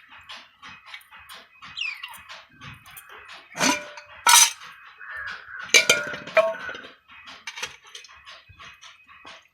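Parrot chick calling while being hand-fed: a steady stream of rapid, short begging chirps, broken by a few loud squawks around the middle.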